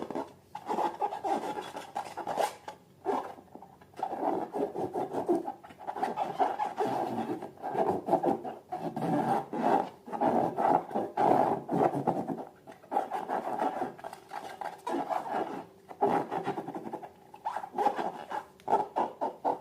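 Rubbing and squishing from hands working rubber balloons and slime, in uneven strokes with brief pauses.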